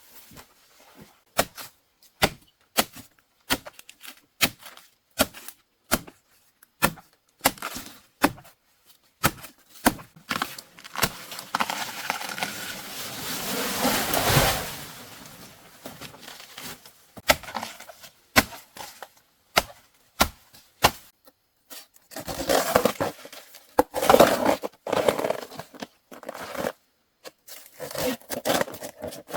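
Plant material being snapped and torn: a run of sharp cracks about once a second, with longer stretches of rustling and tearing about halfway through and again near the end.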